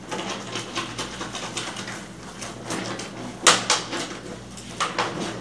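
Laundry being washed by hand in a plastic tub of soapy water: wet clothes sloshing and squelching in irregular strokes, loudest about three and a half seconds in.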